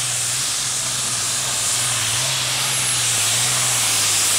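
Modified pulling tractor's diesel engines at full throttle under load, dragging the weight sled: a steady deep drone under a loud rushing hiss.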